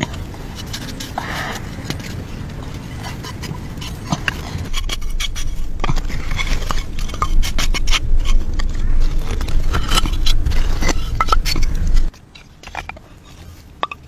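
Freshly fired clay roof tiles scraping and knocking as they are dug out of the ash and handled, a run of sharp clicks and clacks over a low steady rumble that stops abruptly near the end.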